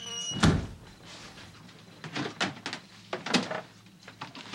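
A heavy thud about half a second in, followed by a few lighter knocks and clunks.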